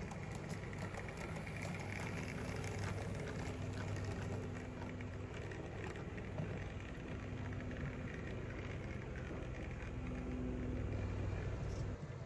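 00 gauge model pannier tank locomotive running along the track hauling tank wagons: a steady electric motor hum with the fine clicking rattle of the wheels on the rails.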